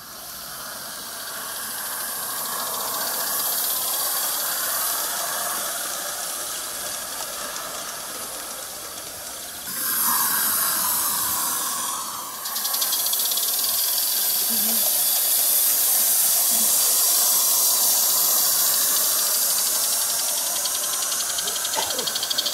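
Live-steam garden-scale locomotive hauling coaches and wagons along the track, with a steady hiss of steam and the rattle of wheels on rail.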